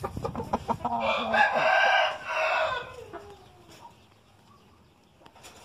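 Gamecock rooster crowing once, a loud call starting about a second in and lasting about two seconds, trailing off at the end. A few short clicks come just before it.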